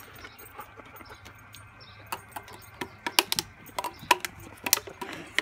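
A dog's teeth clicking and scraping on an aluminium beer can as it mouths the can in a camp chair's cup holder: irregular sharp clicks and taps starting about two seconds in.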